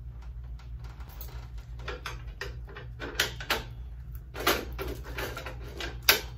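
Sharp clicks and knocks of an LED headlight being pushed and fitted by hand into a motorcycle's metal headlight ring, several in a row with the loudest near the end, over a steady low hum.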